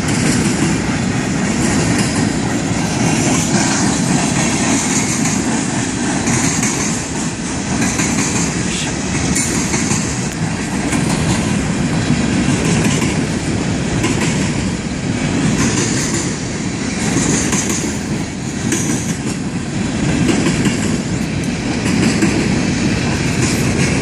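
Empty railroad hopper cars of a ballast train rolling past, steel wheels clattering over the rail joints, with a high-pitched wheel squeal coming and going every few seconds.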